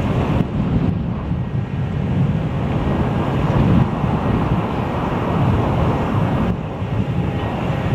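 Strong gusty wind buffeting the camera microphone, a loud, steady low rumble that swells and eases.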